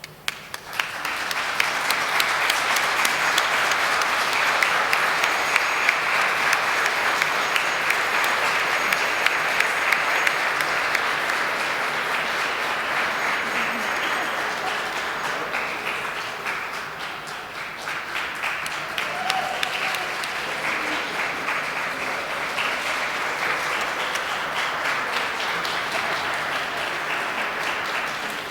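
Audience applauding at the close of a performance. The applause breaks out suddenly after a hush, builds within a second or two, eases a little about two-thirds of the way through, then carries on steadily.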